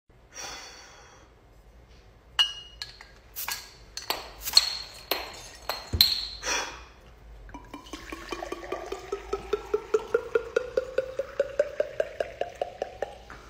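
Glass clinking a few times as glass water bottles are handled against a drinking glass, then water poured from a glass bottle into a tall glass. The pour glugs in quick regular pulses, and its pitch rises steadily as the glass fills.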